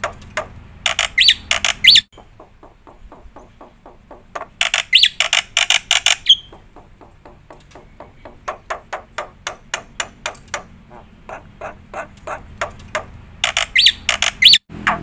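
Black-winged myna (jalak putih) singing in full voice: a fast run of short chattering notes, about eight a second, broken three times by louder, harsher bursts with rising whistled notes.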